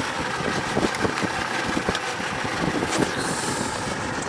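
Boat engine idling steadily, with a few light knocks as the stingray is handled on the deck.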